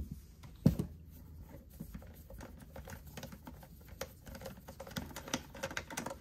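Quick, irregular small clicks and ticks of a screwdriver turning a T20 Torx screw out of a rotary hammer's plastic motor end cap. There is one sharp knock under a second in, and the clicking grows busier in the second half.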